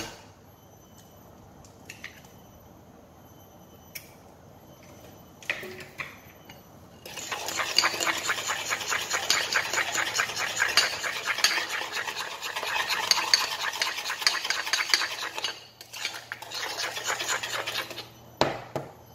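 A fork beating an egg into a creamed butter-and-sugar mixture in a glass bowl: fast, even clicking and scraping against the glass, with a brief pause near the end. Before the beating starts there are a few light taps, the first a sharp knock as the egg is cracked.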